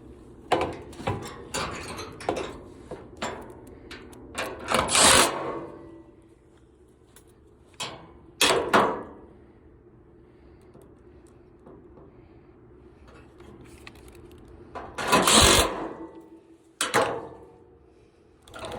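Sheet-metal service panel of a heat pump being handled and fitted back on: irregular clicks and metallic knocks, with four louder bursts about a second long.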